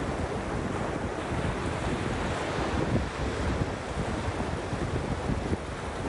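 Ocean surf breaking just offshore and washing in around beach rocks, a steady wash of water noise. Wind buffets the microphone, giving a low, uneven rumble.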